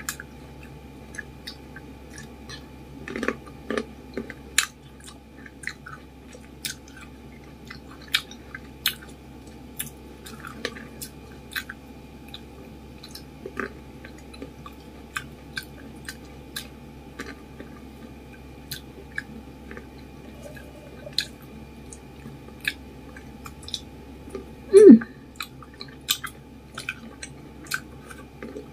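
Close-miked chewing of fresh green grapes: wet mouth sounds with many sharp, crisp clicks and pops at irregular intervals. About 25 s in comes one brief, much louder sound that slides down in pitch.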